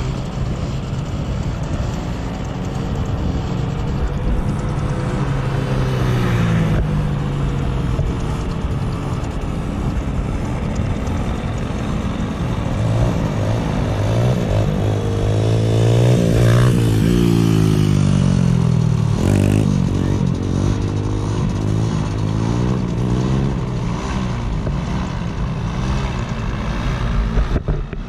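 Two-stroke paramotor engines droning overhead. One paramotor flies low past: its pitch rises as it comes in and drops as it goes by, loudest about sixteen seconds in.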